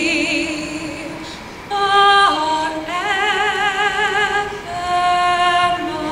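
A solo female voice singing into a microphone, holding long notes with vibrato and dropping in pitch about two seconds in.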